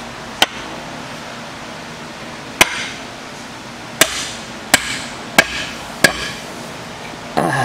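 Six sharp knocks, about a second apart, as a sledgehammer is rapped handle-end down to drive its steel head onto a new wooden handle during a test fit, the head seating on the handle's shoulder. A brief scrape comes near the end.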